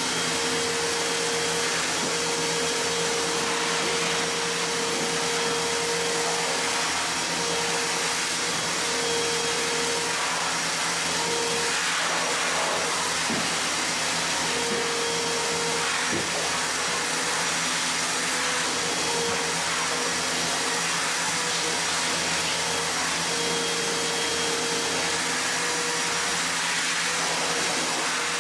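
An electric blower motor running steadily with a loud, even whoosh and a faint hum that wavers in and out.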